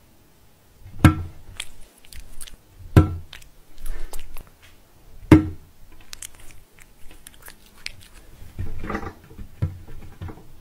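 Cats batting and pawing on a glass surface for dropped treats: three sharp knocks about two seconds apart, then lighter taps and clicks, with chewing.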